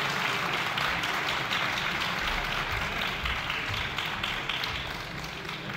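Many legislators clapping in a large assembly hall, a dense patter of applause that slowly fades toward the end.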